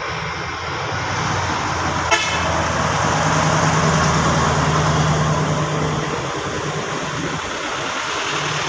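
Heavy truck hauling a loaded lowboy trailer passing close by, its diesel engine and tyres rising to a peak in the middle and easing off. There is a sharp click about two seconds in.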